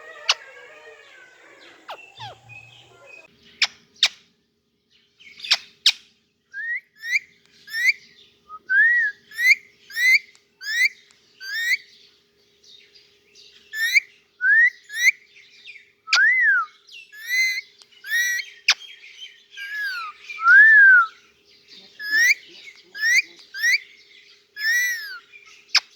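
Ringneck parakeet chirping over and over, each call a short sharp note that rises and drops, about one or two a second from some six seconds in, with a few sharp clicks in between.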